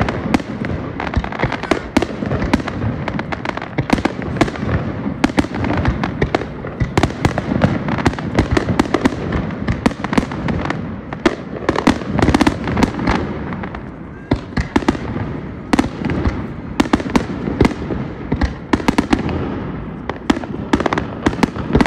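Aerial fireworks display: a rapid, continuous barrage of shell bursts and bangs, many a second, over a steady crackle.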